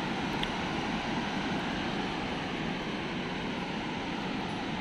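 A fast mountain river rushing, a steady unbroken noise of water.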